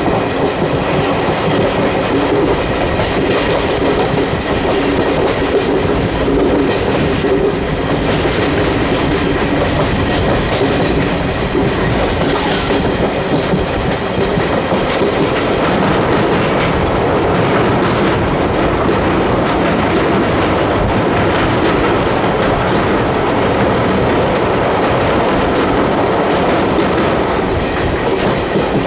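Express passenger train running at speed: a steady loud rumble of the coaches, with the wheels clicking over the rail joints.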